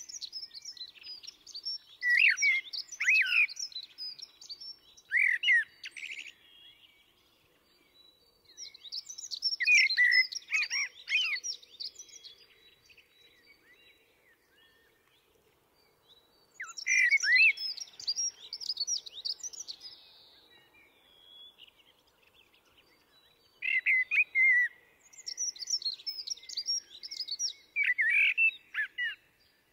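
Common blackbird singing in separate phrases a few seconds apart: low fluted whistles followed by quicker, higher twittering.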